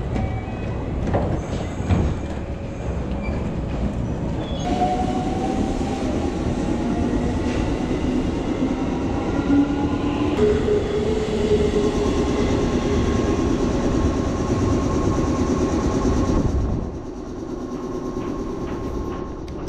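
Electric commuter trains at a station platform: steady running rumble and wheel noise, with a motor whine that rises in pitch for several seconds as a train gathers speed, then holds steady. The sound changes abruptly a few times.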